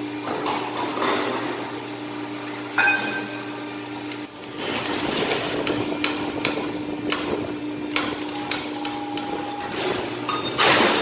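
Press brake humming steadily while a thin stainless steel sheet is handled at it, with scattered sheet-metal knocks and clanks and a louder clatter near the end.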